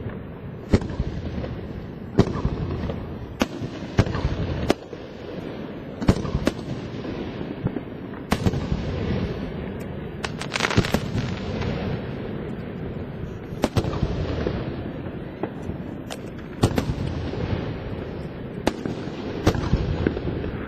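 Aerial fireworks show: shells bursting with sharp bangs every second or two, each followed by a rumbling echo and crackle, with a dense stretch of crackling bursts about ten seconds in.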